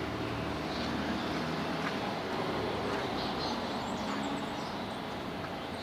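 City street traffic: a steady hum of vehicle engines and passing cars, with a faint steady tone running through it.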